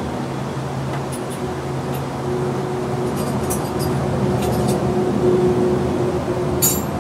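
A steady mechanical hum, like a motor running, with a few light metallic clinks about one, three and a half, four and a half and nearly seven seconds in.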